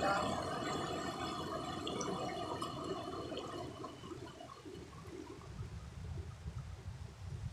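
Shallow river water rushing and churning over rocks in a riffle. It is loudest at first and fades about four seconds in, leaving a low rumble.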